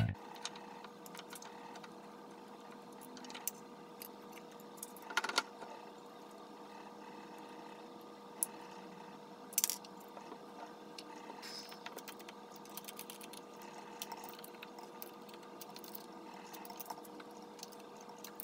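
Scattered metallic clicks and clinks as a lathe's four-jaw chuck is handled and turned by hand, over a faint steady electrical hum.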